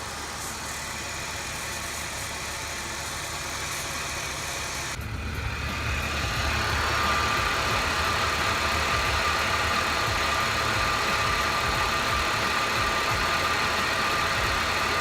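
A 2003 Mercedes C32 AMG's supercharged 3.2-litre V6 idling steadily. It gets louder about six seconds in, with a steady high tone over the low running sound. The odd noise the owner had been hearing is not there.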